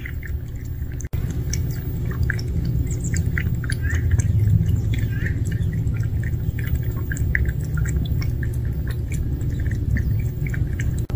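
Two cats lapping water from a plastic bowl: a quick, irregular run of small clicks, over a steady low rumble.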